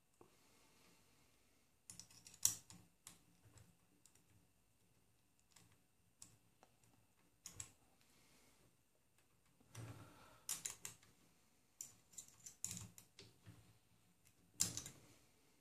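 Faint, irregular clicks and taps of a small metal hex key on bolts and the plastic X carriage of a 3D printer as the bearing-holder bolts are tightened, with a few sharper clicks among them.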